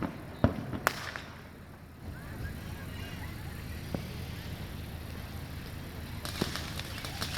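Fireworks going off: two sharp bangs in the first second, a single bang about four seconds in, then a crackling burst of rapid pops near the end.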